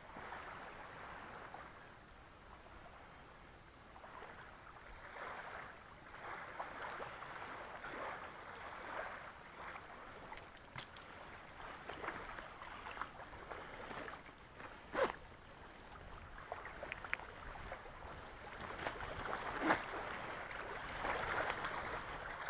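Small wind-driven waves lapping and splashing on a stony lake shore, swelling and easing in a rough, uneven wash. A few sharp clicks and knocks break through, the loudest about fifteen and twenty seconds in.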